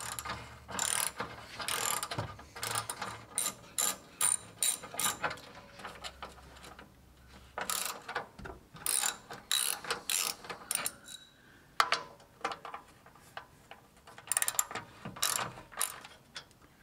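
Hand ratchet and socket clicking in repeated quick bursts as it backs out the 12 mm bolts holding the front skid plate to the frame.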